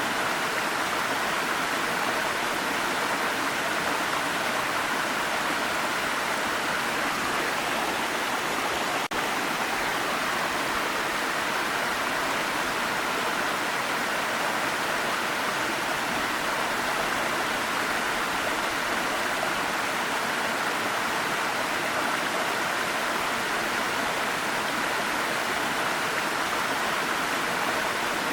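Waterfall: a steady, even rush of falling water, strongest in the middle and upper range, with a momentary dropout about nine seconds in.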